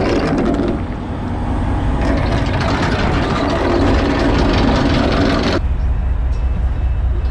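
Wet steel anchor chain hauled in over a boat's metal bow fitting, the links clattering and scraping in two spells, over the low steady hum of the boat's engine. The clatter cuts off suddenly about five and a half seconds in, leaving the engine hum.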